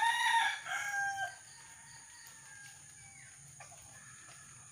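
A rooster crowing once, the call ending a little over a second in.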